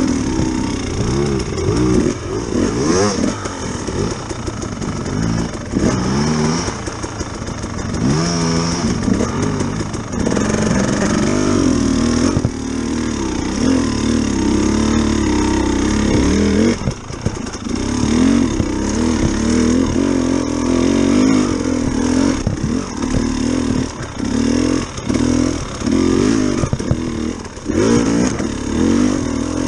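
Dirt bike engine heard from on board, its pitch rising and falling constantly as the throttle is opened and closed over rough trail. The sound dips briefly a little past halfway and again near the end.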